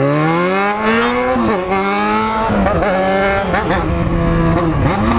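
Yamaha XJ6's inline-four engine, running through a straight pipe with no muffler, revving hard as the motorcycle accelerates. Its pitch climbs, drops at an upshift a little over a second in, climbs and drops again at a second shift about two and a half seconds in, then holds at a steady high rev.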